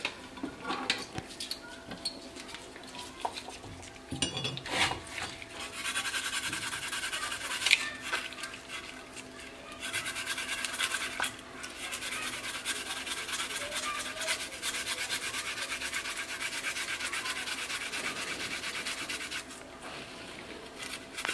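Garlic cloves grated on a flat handheld metal grater: a fast, steady rasping scrape. It starts after a few seconds of light handling knocks, dips briefly partway through, and stops shortly before the end.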